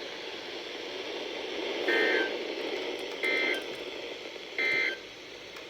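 Emergency Alert System (SAME) end-of-message data code: three short data bursts about 1.3 seconds apart over steady radio hiss. It marks the end of the weather alert broadcast.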